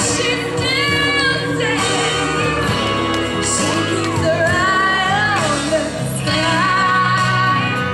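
A woman singing live into a handheld microphone over musical accompaniment, in sung phrases with long held notes that waver with vibrato.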